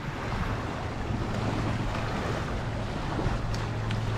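Wind blowing across the microphone over open water: a steady rushing noise with a low steady hum underneath.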